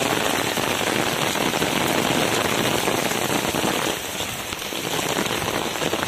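Heavy rain pouring onto a wet concrete rooftop, a dense steady hiss of drops that eases slightly about four seconds in.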